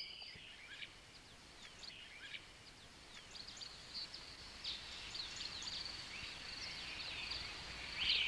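Faint nature ambience: many quick bird chirps, each sliding down in pitch, with a steady high insect trill joining about four seconds in.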